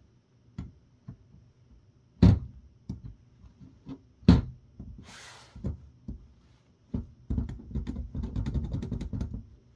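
Hand tools and small plastic and metal camera parts being handled during a teardown of a compact film camera: two sharp knocks about two and four seconds in, scattered light clicks, then a couple of seconds of rapid clicking and rattling near the end.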